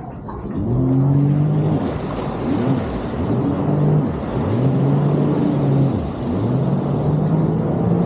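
Jet ski engine revving up and easing off about five times in a row, over a steady hiss.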